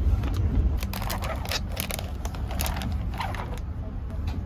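Plastic wrapping film crinkling and crackling in a run of quick rustles as it is peeled off a boxed meal tray, over the steady low rumble of the train.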